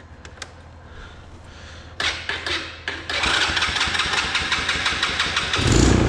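A 125cc Chinese ATV's small single-cylinder engine being cranked over on choke and sputtering as it tries to catch after a carburetor clean. It starts about two seconds in, settles into rapid uneven firing about a second later, and surges louder near the end.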